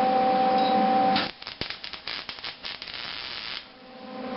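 A steady hum breaks off about a second in. About two seconds of irregular crackling and spitting follow: a MIG welding arc making a short tack weld on steel. The hum comes back near the end.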